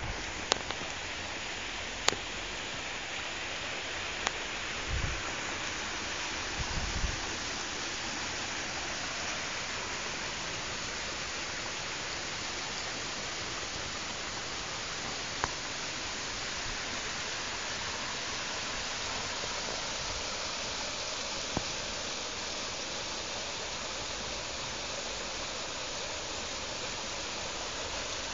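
Steady rush of a swollen, muddy stream running high, with a few sharp clicks and a couple of low bumps.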